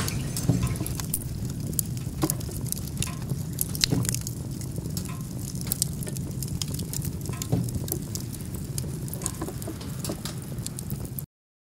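Firewood burning in a Dutch West Elite wood stove with its stovepipe damper closed: irregular crackling and popping over a steady low rumble. It cuts off suddenly near the end.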